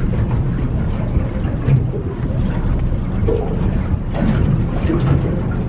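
Wind buffeting the microphone aboard a boat on open water: a steady, loud low rumble.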